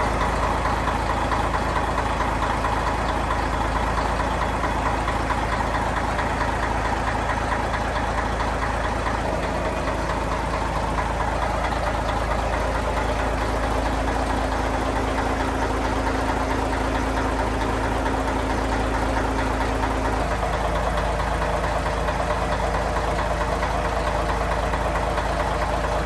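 Yanmar 6KX-ET turbocharged marine diesel, rated 580 hp, idling steadily, heard up close inside the boat's engine room. Its note changes slightly about twenty seconds in.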